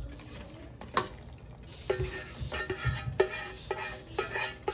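Spatula scraping thick, creamy sausage sauce out of a pan into a stainless steel pot of tortellini, with a few sharp clinks of the spatula against the metal, one about a second in and another about three seconds in.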